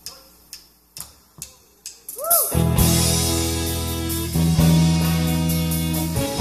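A live band's count-in of sharp clicks, about two a second. A short swooping note follows, and about two and a half seconds in the band comes in with electric guitar, bass and drum kit playing the song's intro.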